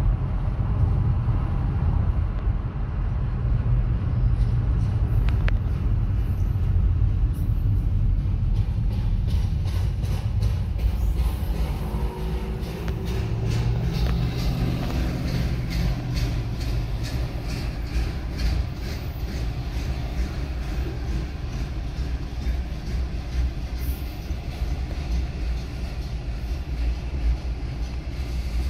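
Inside a car's cabin: steady road rumble while driving beside a freight train of autorack cars, easing as the car stops about halfway through. The train goes on rolling past with a rapid, even clicking.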